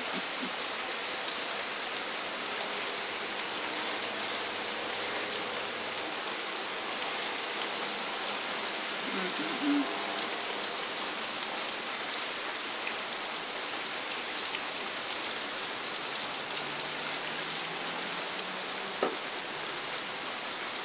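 Heavy rain pouring steadily onto a grass yard, an even, dense hiss. A short low voice-like sound comes about ten seconds in, and a brief knock comes near the end.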